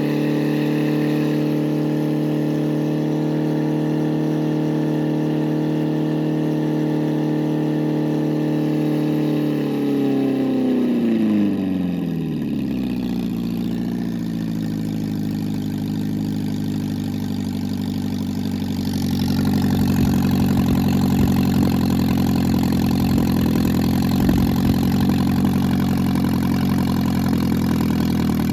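Freshly rebuilt MGB 1800 18V four-cylinder engine running with no muffler, so the exhaust is loud and raw. It holds a steady fast idle, drops in revs about ten seconds in and settles to a lower idle, which grows a little louder later on. Its ignition timing is about 3 degrees off, so it isn't running quite as smoothly as it could.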